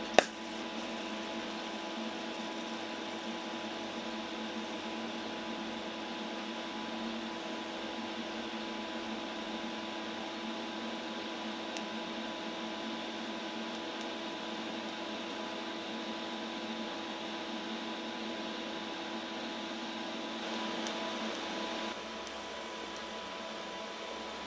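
Steady electrical hum and fan noise of a TIG welding set running during tack welding, with one sharp click just after the start. The sound steps down slightly about two seconds before the end.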